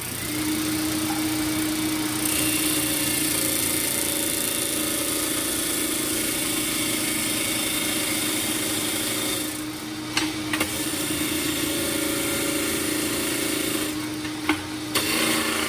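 Bench disc sander running with a steady motor hum while the end of a steel square tube is ground against the abrasive disc, a continuous grinding hiss from about two seconds in. This is squaring up a bandsaw-cut end. The grinding drops out briefly twice, with a few clicks, as the piece is lifted and turned.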